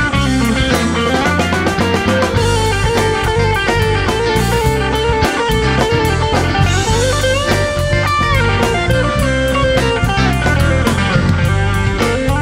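Blues band playing an instrumental passage: an electric guitar lead with bent notes over drums and bass.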